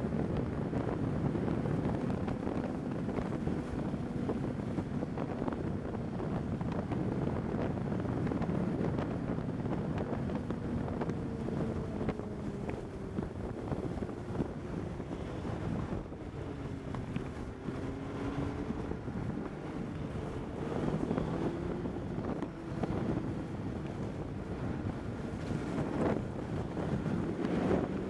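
Snowmobile engine running at speed, its pitch slowly rising and falling with the throttle, with wind buffeting the microphone.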